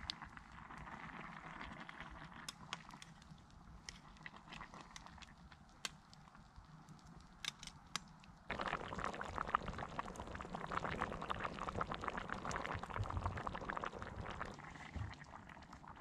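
Faint scattered crackling, then about halfway in a sudden dense bubbling of liquid in a pot hung over a campfire, which runs for several seconds and eases off near the end.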